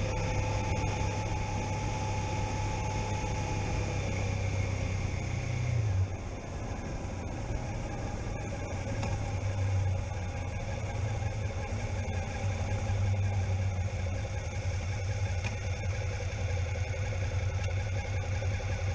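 Suzuki SV650's V-twin engine running under way, with a steady note that drops about six seconds in, then rises and falls again.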